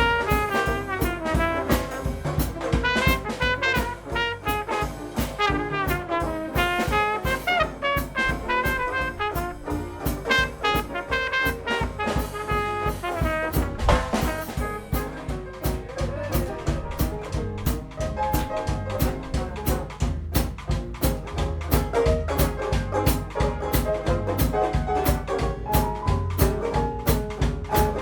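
Small Dixieland jazz band playing an up-tempo instrumental passage: a trumpet plays the lead over drum kit, piano and banjo keeping a steady beat.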